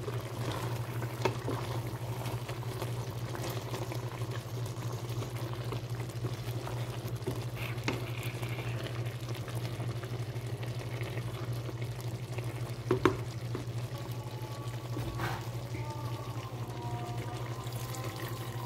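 Chicken, potato and lentil stew in tomato sauce simmering in a steel pot while a wooden spoon stirs it. A steady low hum runs underneath, and the spoon knocks against the pot a few times, the loudest about two-thirds of the way in.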